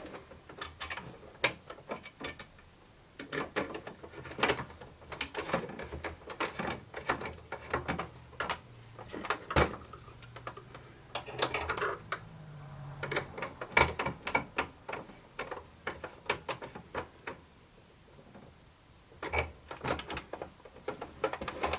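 Machine screw, lock nut and hand tools clicking and tapping against the pump kit's aluminium and 3D-printed plastic parts as the low-profile lock nut is fitted and tightened. Irregular small clicks and knocks throughout, with a faint low hum in the middle.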